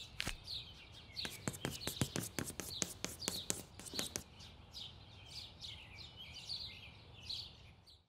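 Small birds chirping and tweeting in quick short calls, mixed with light clicks, getting quieter and fading out at the end.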